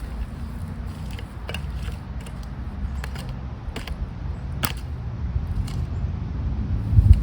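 DR Pro XL stump grinder's petrol engine running with a low steady hum, with scattered clicks and a sharper knock about four and a half seconds in, growing louder near the end.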